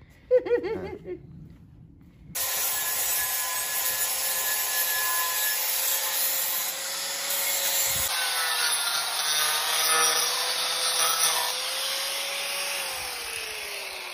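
Angle grinder running with its disc against a freshly cast metal frying pan, grinding the surface smooth. It starts abruptly about two seconds in with a steady whine, and near the end the whine falls as the grinder spins down.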